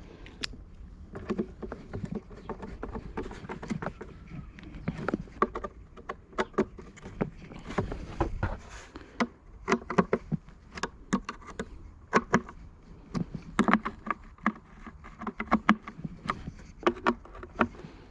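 Irregular clicks, taps and light knocks of a screwdriver and plastic housing parts being handled while the blower's starter cover is screwed back on.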